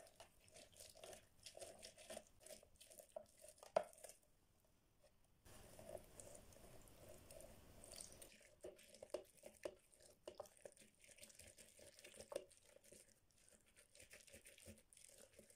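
Orange halves pressed and twisted by hand on a plastic manual citrus juicer: faint, irregular crackling and clicking of the pulp against the reamer, with one sharper click just before a short pause about four seconds in.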